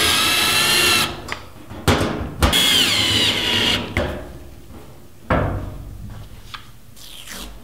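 A drill-driver drives the screws down on a fuel-level sender's mounting plate. Its motor whine stops about a second in, a couple of clicks follow, then a second short run drops in pitch as the screw seats. A single knock comes about five seconds in.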